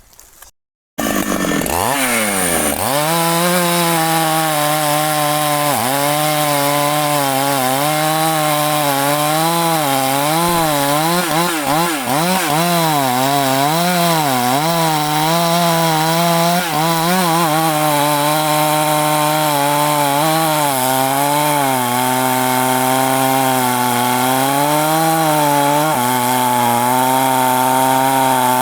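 Large Husqvarna two-stroke chainsaw cutting into a thick rain-tree trunk. It cuts in suddenly about a second in and its pitch drops as the bar bites. Then its engine speed keeps rising and falling under the load of the cut.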